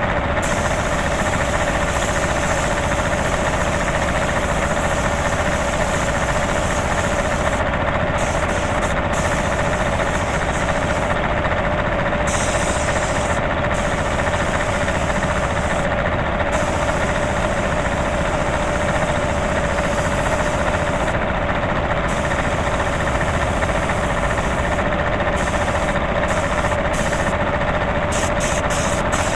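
Piston air compressor running steadily with a constant hum, feeding a spray gun that hisses on and off as primer is sprayed.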